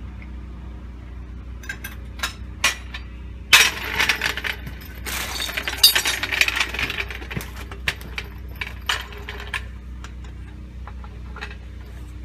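Metal hand tools clinking and scraping against the steering parts while the old track rod end is worked loose. There are scattered sharp clinks, then a dense rattling scrape lasting a few seconds in the middle, then more clinks.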